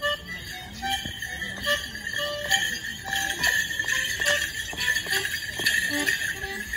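Morris dancers' bell pads jingling on their shins with each step of a double jig, over a live jig tune played on a melody instrument.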